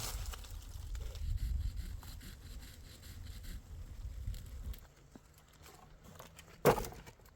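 Hand sawing of firewood with scraping strokes over a low rumble for the first few seconds, then a quieter stretch and a single sharp knock near the end.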